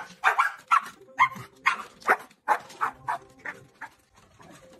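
Dog barking over and over: about a dozen short barks a few tenths of a second apart, growing quieter toward the end and stopping about four seconds in.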